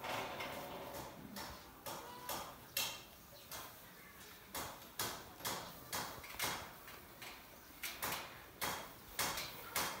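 Goats feeding at a shared feed pan: sharp, irregular knocks and clatters, roughly two a second, as their heads and muzzles jostle against the pan.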